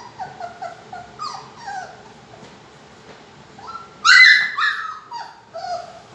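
Labrador puppy whimpering and whining: a run of short cries that fall in pitch, with the loudest a little after four seconds in.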